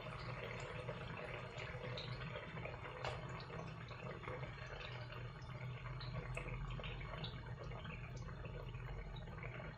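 Vegetable fritter (bakwan) batter deep-frying in hot oil in a pot: steady sizzling with many small crackles as fresh spoonfuls are added.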